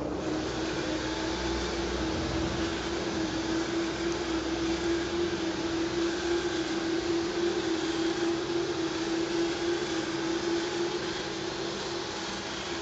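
LGB garden-scale model train running on outdoor track: a steady motor hum with wheels rolling on the rails, a little louder about midway through.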